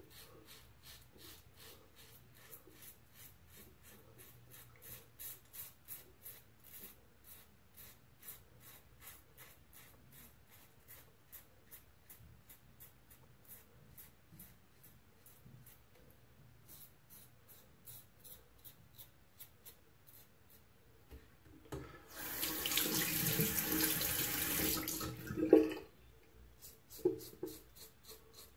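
Merkur Progress adjustable safety razor, set to 4 with an Astra Superior Platinum blade, scraping through lathered stubble in short strokes, about two to three a second. About 22 seconds in a tap runs for a few seconds and stops with a sharp knock, then the scraping strokes resume.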